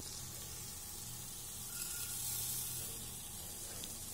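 Onion, tomato and spice masala sizzling steadily in oil in a pressure cooker, frying down to the stage where the oil separates at the edges.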